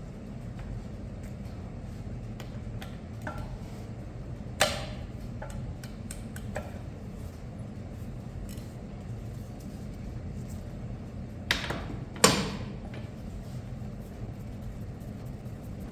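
Tools and metal parts being handled and set down on a workbench: a few sharp clinks and knocks, the loudest two close together about 11 and 12 seconds in, over a steady low shop hum.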